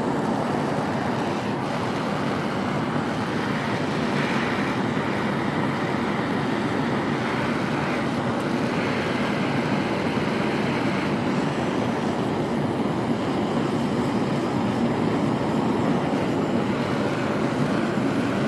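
Steady rushing noise of the flame heating the hammer eye punch while it is tempered, as the temper colours creep from straw toward blue.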